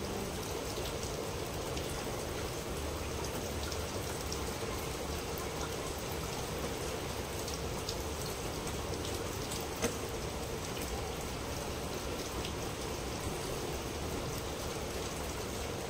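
Heavy rain falling steadily: a continuous hiss, with a faint tick now and then and one sharper tick about ten seconds in.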